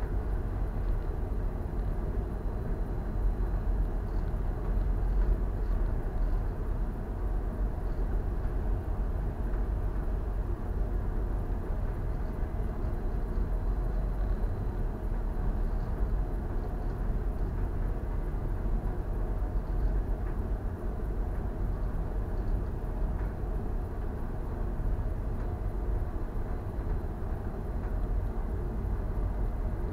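Steady low rumble of wind buffeting the microphone on a bulk carrier under way, without a clear engine tone.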